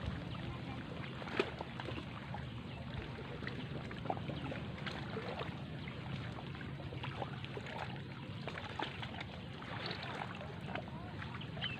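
Waterside outdoor ambience: a steady low hum with scattered light clicks and ticks throughout.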